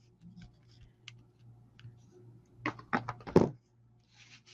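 A few faint clicks, then a quick run of five or six sharp taps about three seconds in.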